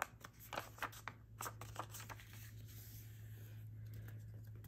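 Faint paper handling: a few light taps and rustles as a glued book page is laid onto a paper tag, then a soft steady rubbing as a hand presses it flat on a cutting mat.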